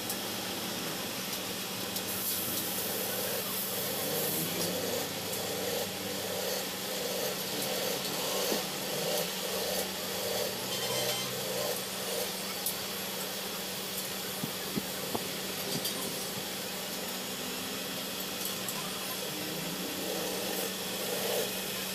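Clutch discs being handled and worked by hand on a pillar drill's spindle: a rhythmic scraping rub for several seconds, then scattered light metal clicks, over a steady low background hum.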